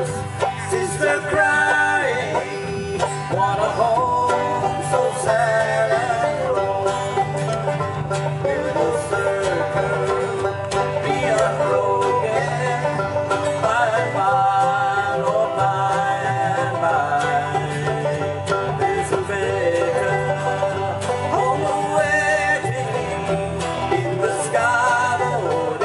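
Live bluegrass band playing an instrumental passage: banjo picking over upright bass and acoustic guitar, with the bass keeping a steady pulse underneath.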